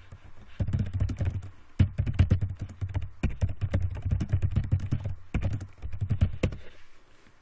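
Typing on a computer keyboard: quick runs of keystrokes with brief pauses between them, stopping shortly before the end.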